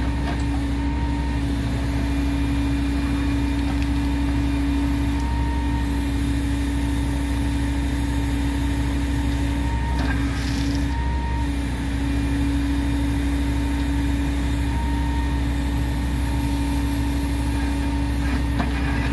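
Heavy engine idling steadily, a constant unchanging drone.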